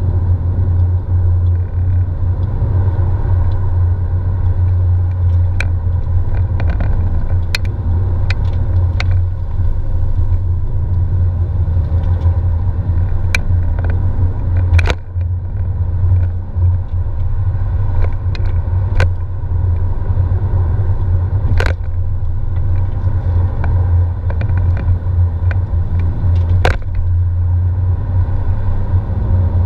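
Porsche 997 driving, heard from inside the cabin: a loud, steady low drone of its flat-six engine and the road, with scattered sharp clicks.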